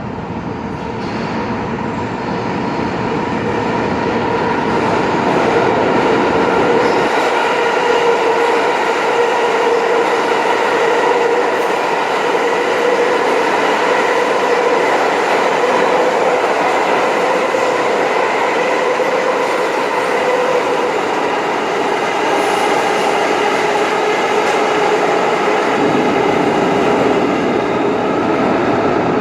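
Subway trains passing a rail grinder, a loud steady mechanical drone carrying several steady tones over a rumble. The deep rumble thins out about a quarter of the way in and comes back near the end.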